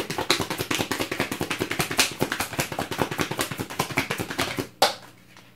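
A deck of tarot cards being shuffled by hand: a rapid, continuous patter of card-edge clicks that stops shortly before the end, followed by one sharp tap.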